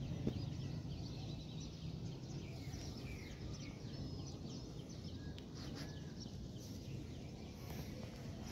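Outdoor ambience: faint, scattered chirping of small birds over a steady low background rumble.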